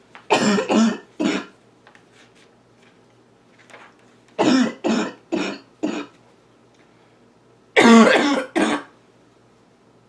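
A girl's loud barking cough in three fits: three coughs at the start, four more a few seconds later, then two last coughs near the end, the loudest of all.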